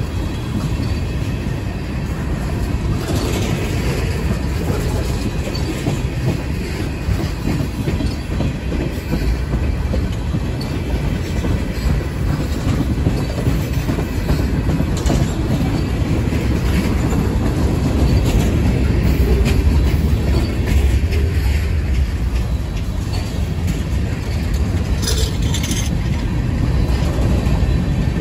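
Freight cars of a Union Pacific mixed freight train (tank cars, covered hoppers, gondolas) rolling past: a steady rumble of steel wheels on rail, with scattered clicks as the wheels pass over the track.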